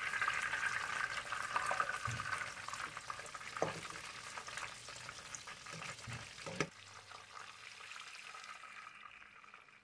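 Breaded chicken cutlets frying in shallow hot oil in a pan: a steady crackling sizzle that slowly grows quieter. A few light knocks come as a fork turns and lifts the pieces.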